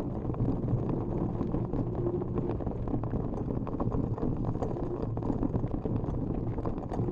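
Mountain bike rolling fast down a dirt trail: tyres on loose ground with frequent small rattles and clicks, under steady wind rush on the microphone.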